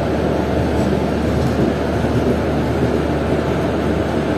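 LHB passenger coaches of an arriving express rolling past along the platform: a steady rumble and rush of wheels on rails with a low hum beneath.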